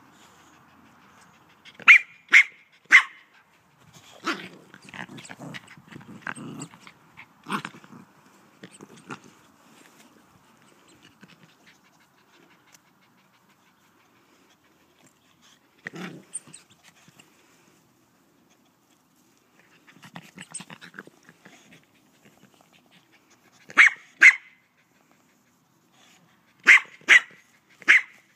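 Boxer dog barking at a dry leaf it is wary of. The short, sharp barks come in groups: three about two seconds in, two more later on, and three near the end. Quieter, rough low sounds fill the gaps between the groups.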